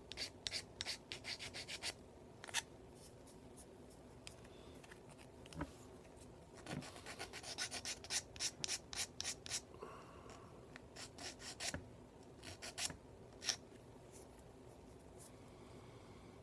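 Small hand file scraping across a mould seam on the plastic oil pan of a 1941 Plymouth model-car engine, smoothing it flat. The strokes come faint and rapid in spells, with pauses between, and stop a few seconds before the end.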